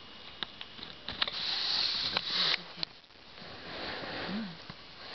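Mother cat licking her newborn kitten clean, with soft clicks and breathy rasping noises, loudest about a second in. The fleece blanket rustles underneath.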